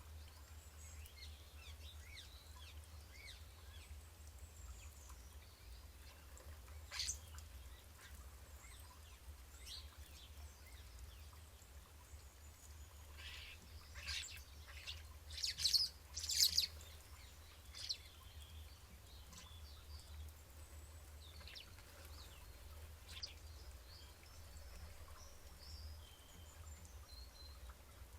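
Garden birds chirping and calling at intervals, with a brief cluster of loud, high calls a little past the middle, over a steady low hum.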